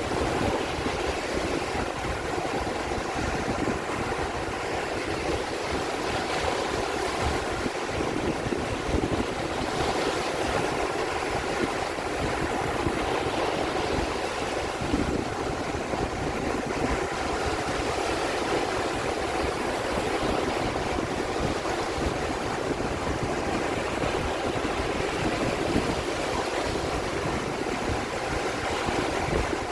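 Sea water rushing in a steady, continuous wash, without separate wave crashes standing out.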